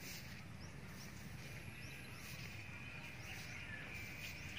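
Quiet garden ambience: a few short, high, rising bird chirps over a faint steady background hiss.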